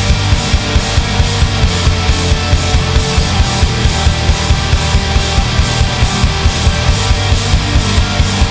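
Instrumental break in a heavy rock song: electric guitars, bass and drum kit playing without vocals, with a steady beat of about four accented hits a second.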